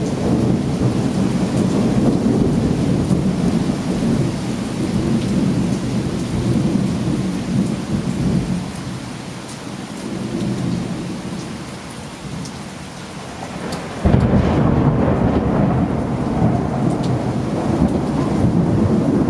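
Thunderstorm with steady heavy rain: a long rolling rumble of thunder that dies down over the first half, then a sudden loud thunderclap about fourteen seconds in that rumbles on.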